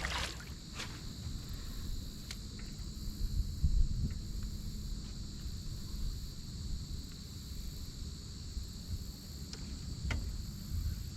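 Steady chorus of insects trilling in two high-pitched bands, over a low rumble, with a few faint clicks.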